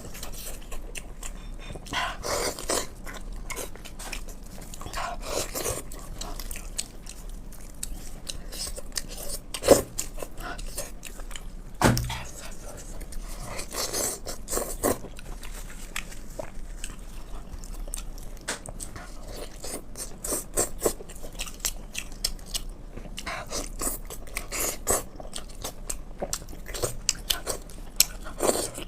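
Close-miked chewing and lip-smacking of someone eating braised pork, in irregular wet bursts, with two sharp knocks about ten and twelve seconds in.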